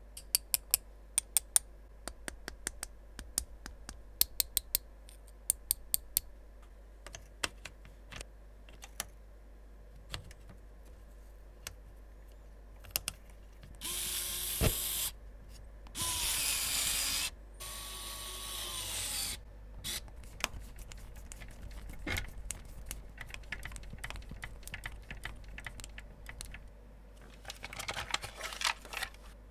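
Sharp clicks and taps of small hard plastic and carbon-fibre parts being handled, then a cordless electric screwdriver running in three short bursts of one to two seconds, each whine dying away as it stops, as it drives screws into an RC car chassis. More clicking and rattling of parts near the end.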